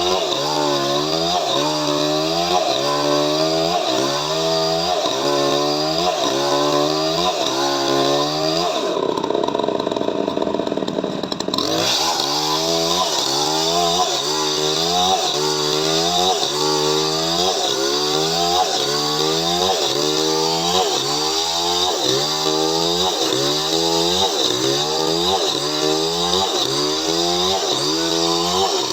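Chainsaw cutting through coconut wood, the engine pitch dipping and rising about once a second as the saw works the cut. The pattern breaks briefly into a noisier sound about nine seconds in, then the rhythmic cutting resumes.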